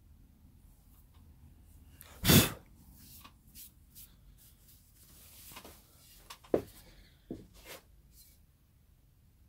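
A single short, loud noise burst about two seconds in, then a few light knocks and clicks as the restored billhook's steel blade and wooden handle are handled.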